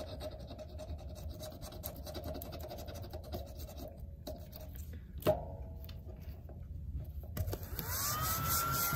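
Pen tip scratching at a scratch-off sticker on a card, a faint steady scraping, with one sharp click about five seconds in. Near the end a louder rubbing starts, together with a thin tone that rises and then holds steady.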